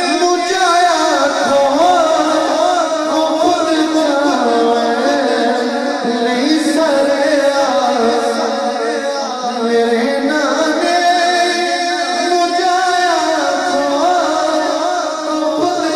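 A male naat reciter singing a devotional naat into a microphone, in long, wavering held notes carried through a sound system.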